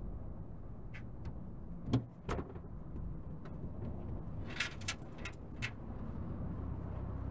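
Scattered clicks and knocks of hardware being handled inside a vehicle, with a short run of rattling clicks about four and a half seconds in, over a steady low rumble.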